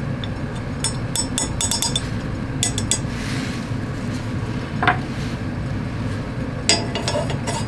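Light glass clinks as a glass funnel is handled in the ground-glass neck of a round-bottom flask: a run of clinks in the first few seconds, a few more near the end, over a steady low hum.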